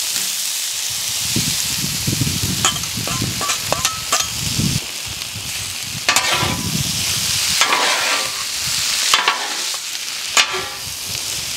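Soaked hard bread for fish and brewis sizzling on a hot Blackstone flat-top griddle, while a metal scraper chops and scrapes it against the steel cooktop in several irregular knocks.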